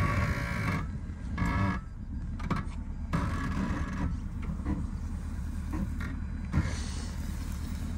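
Porsche Cayenne S's 4.5-litre V8 engine running steadily at low revs as the SUV crawls off-road.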